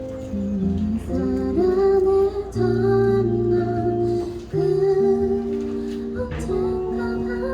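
A female singer singing a slow, gentle song, accompanied by guitar and keyboard.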